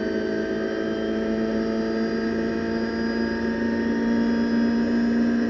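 Renault Clio Cup race car's 2.0-litre four-cylinder engine at full throttle in sixth gear, heard from inside the cockpit: a steady high-revving drone whose pitch rises slowly as the car gains speed.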